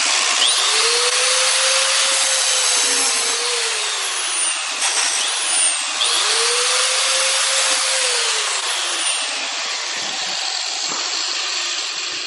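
Angle grinder running with its disc grinding into an iPhone 6s's aluminium body, a loud continuous grinding hiss. The motor's pitch sags and recovers twice under load, and the grinding stops near the end.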